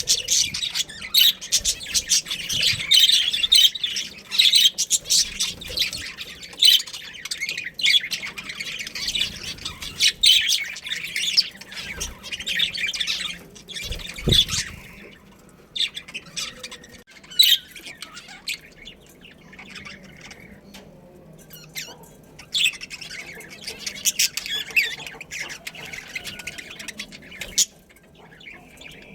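Budgerigars chattering and squawking in a rapid, busy stream for the first half. The chatter thins out in the middle and picks up again for several seconds near the end, with a dull low thump about halfway through.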